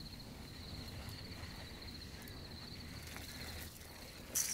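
Crickets trilling steadily in a fast pulsing chirp over a low steady rumble. A short, loud hiss cuts in at the very end.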